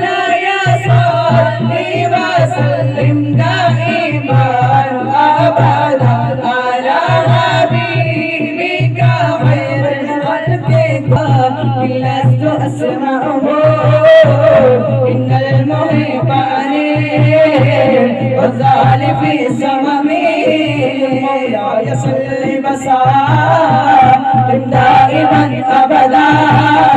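A group of boys singing an Arabic devotional song in praise of the Prophet into microphones, a lead voice carrying a wavering melody over a low sustained tone.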